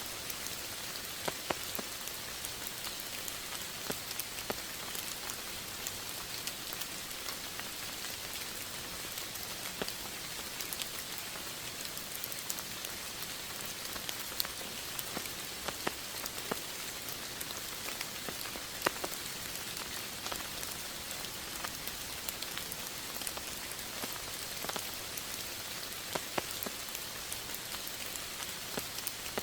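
Steady rain falling, an even hiss with scattered individual drops ticking out clearly now and then.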